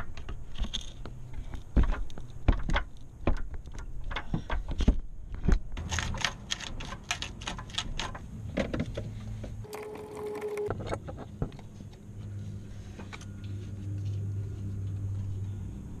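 Metal hand tools clicking and clinking against the battery hardware inside a car's wheel well, in a run of sharp, irregular clicks. A low steady hum comes in over the last few seconds.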